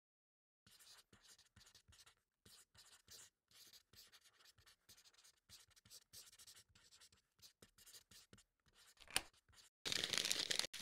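Pencil writing on paper: a quiet run of short, irregular scratchy strokes, with a sharp tick a little after nine seconds and a louder, denser scratching near the end.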